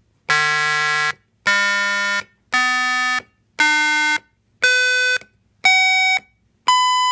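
Homemade microcontroller tone generator playing square-wave tones through an 8-ohm speaker driven by an H-bridge. Seven loud, buzzy tones sound one after another, each under a second long with short gaps between them, stepping up in pitch. The last, a 1000 Hz tone, is held for about two seconds.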